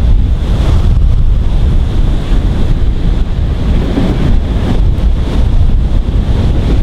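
Howling wind buffeting the microphone with a heavy, rough rumble. Under it is the approaching LNER A4 steam locomotive 60009, working as a light engine with no train.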